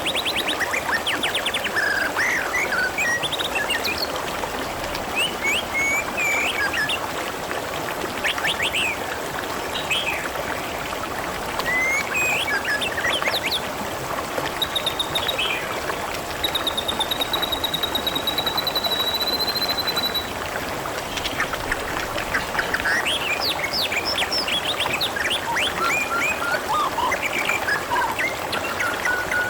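Steady babbling, trickling water with short bird chirps and calls scattered over it, and a long trilling call about halfway through.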